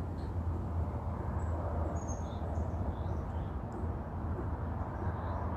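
A few faint, short, high bird chirps scattered over a steady low rumble of outdoor background noise.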